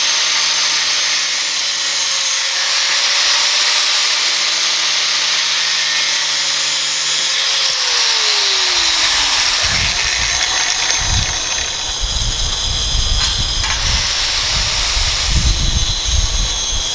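Angle grinder with a diamond cut-off wheel cutting metal: a steady motor whine over loud grinding hiss. About eight seconds in the motor's pitch falls, and irregular low rumbling follows under the continuing hiss.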